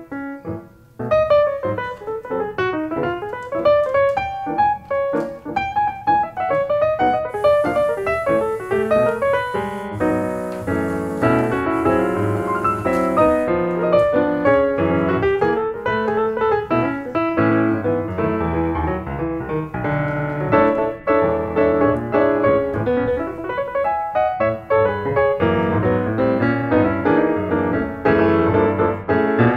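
Piano music with a busy run of notes that grows fuller, with lower chords, about a third of the way through.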